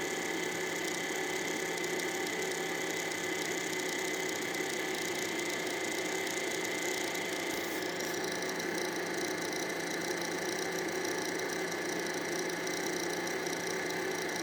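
Monoprice MP Select Mini V2 3D printer running with a steady mechanical whir and several steady whining tones, a higher tone joining about eight seconds in. It is powered up but not visibly moving or printing.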